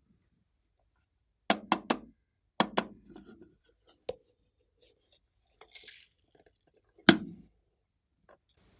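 Clear slime being pressed and stretched by hand, giving sharp wet pops and clicks. There are three quick pops, another cluster a second later, and a single pop near the middle. A short hiss comes just before the loudest pop, about seven seconds in.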